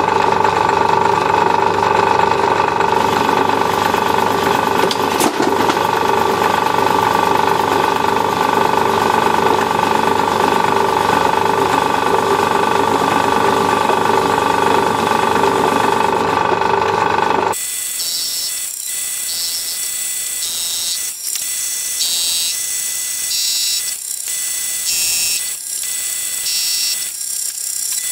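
Small BTM lathe running while turning a brass workpiece: a steady machine hum with clanking from the lathe motor's bearings. About two-thirds of the way through, the sound changes abruptly to a quieter, hissy high-pitched noise with some sharp ticks.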